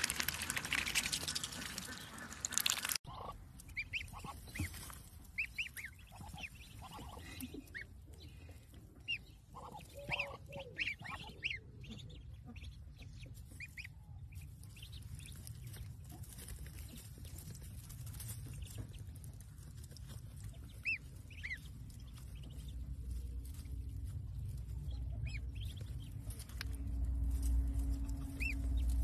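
Ducklings peeping in short, high calls around a Muscovy hen in the nest. It opens with about three seconds of water splashing as the hen drinks from a dish, and a low rumble grows near the end.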